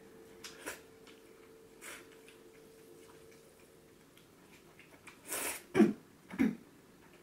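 A person slurping perilla-oil noodles from a bowl: a quiet stretch with a faint steady hum and a few small clicks, then one loud slurp about five seconds in, followed by two short mouth sounds.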